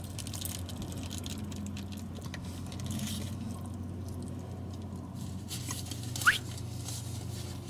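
A person chewing a mouthful of burrito, with faint soft mouth noises over a steady low hum. A brief rising squeak comes a little after six seconds in.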